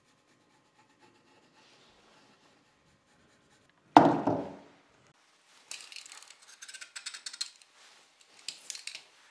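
Faint pencil scratching on plywood, then one sharp wooden knock about four seconds in. After that, a utility knife blade scrapes and scores a thin plywood strip in short, uneven strokes.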